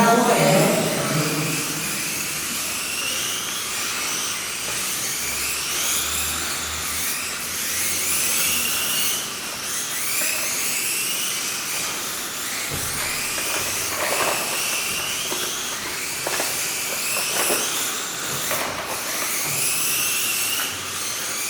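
Small electric motors of several Mini-Z radio-controlled cars racing, their high whines rising in pitch over and over and overlapping, over a steady hiss.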